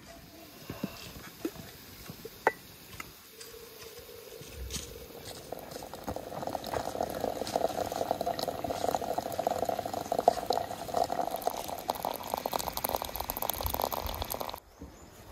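Water poured in a steady stream into a glass jug of loose black tea leaves and citrus slices, splashing and gurgling as it fills for about ten seconds, then stopping abruptly near the end. A few light clicks come before the pour begins.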